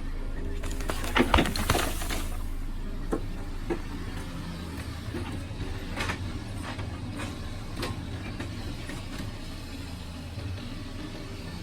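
Excavator's diesel engine running steadily, with a cluster of loud sharp knocks about a second in and scattered single knocks after, typical of the bucket scraping and striking stones.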